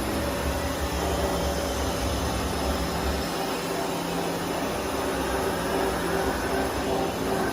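Doosan MX-2100ST CNC multi-tasking lathe running: a steady mechanical hum and hiss with several constant tones. A deeper rumble drops away about three seconds in.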